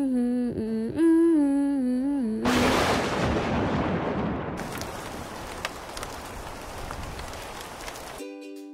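A person hums a short wavering tune, cut off about two and a half seconds in by a sudden clap of thunder that rumbles and fades into steady rain with scattered drips. The rain stops abruptly near the end.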